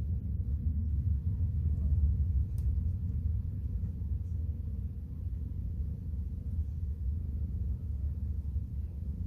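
A steady low rumble, with a faint click about two and a half seconds in.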